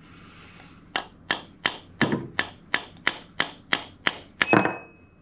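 About a dozen sharp, evenly spaced taps, roughly three a second, on a Taurus Model 82 revolver's frame to jar its stuck side plate loose. The last tap leaves a brief metallic ring.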